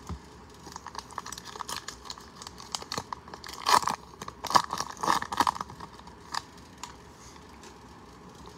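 A 2020 Bowman baseball card pack's silver-lined wrapper being torn open and crinkled by hand, loudest in a few sharp tearing bursts about four to five and a half seconds in.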